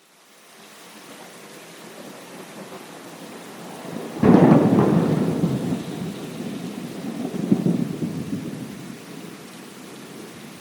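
Rain fading in from silence to a steady hiss. A sudden loud thunderclap comes about four seconds in and rolls on, swelling again a few seconds later before dying back under the rain.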